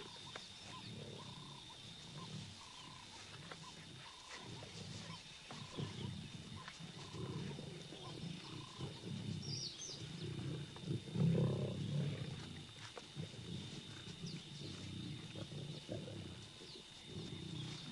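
Lions growling in irregular low bursts over the whole stretch, the loudest about eleven seconds in.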